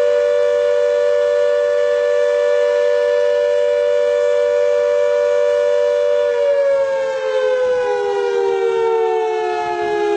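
Civil defense siren sounding a steady two-note chord, then beginning to wind down about six seconds in, its pitch falling slowly.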